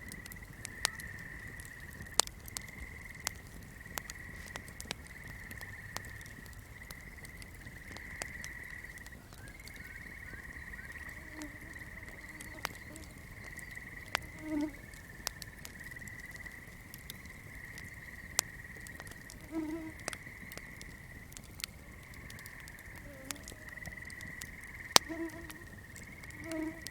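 Night swamp ambience: a continuous high trilling chorus of insects or frogs, with a few short low frog calls in the second half. Sharp crackles from a burning flame sound scattered throughout.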